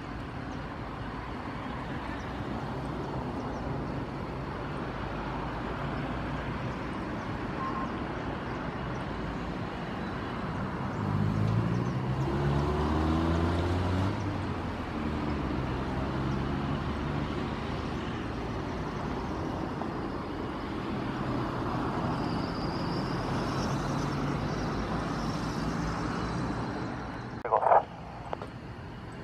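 Steady engine drone of a vehicle engine, its pitch stepping up and down, loudest about eleven to fourteen seconds in. Two short sharp bursts near the end.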